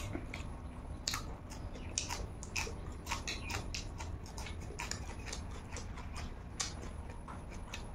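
Close-up eating sounds as rice and fish are eaten by hand: wet lip smacks, chewing and small mouth clicks, several a second and irregular.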